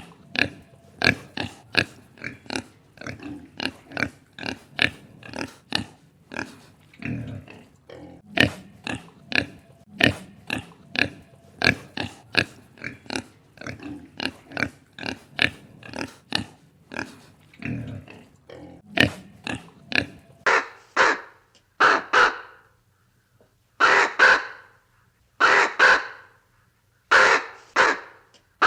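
A flock of flamingos calling: a fast run of short grunting calls, about two a second. From about two-thirds of the way in these give way to fewer, louder and longer honks with short gaps between them.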